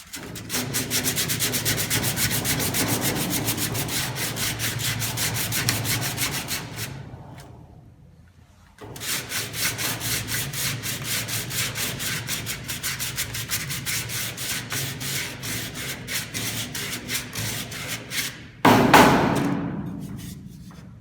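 120-grit sandpaper wrapped round a dowel, rubbed quickly back and forth by hand in the groove of a wooden spatula. The rapid even strokes pause about eight seconds in, then resume. A louder rush of noise comes near the end and fades.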